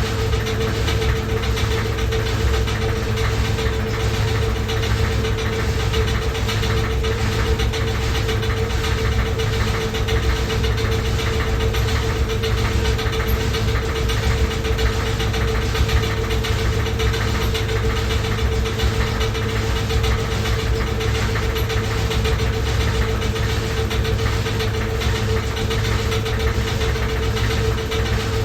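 Washing machine running loudly and steadily: a constant whine over a low rumble, with faint regular ticks.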